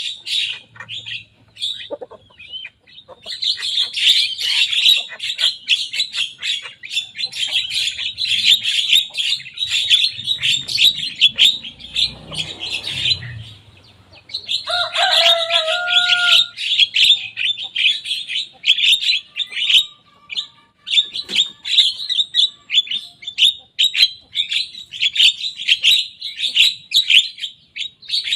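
Young Javan myna singing: long runs of rapid, harsh chattering notes, broken by two short pauses, with a few lower whistled notes about halfway through.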